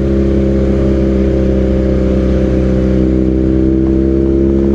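BMW R nineT's boxer-twin engine running at a steady low rpm through a Villan aftermarket exhaust, an even note that neither rises nor falls.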